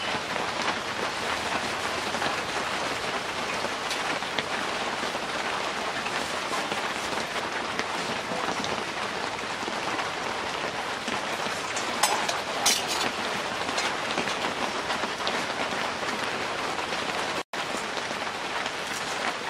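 Steady rain falling, an even hiss throughout, with two sharp clicks about twelve seconds in.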